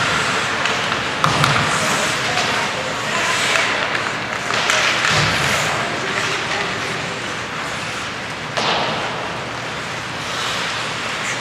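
Ice hockey play on an indoor rink: skate blades scraping the ice and stick and puck knocks, with sharp knocks about a second in and again near nine seconds in, over indistinct voices.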